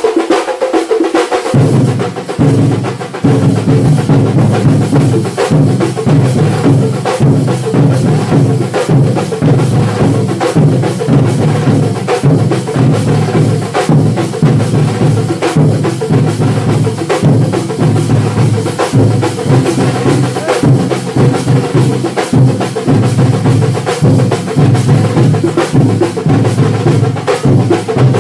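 Thambolam percussion troupe of Kerala drumming with sticks: a loud, dense, driving beat of many drums. The deep drums come in about a second and a half in.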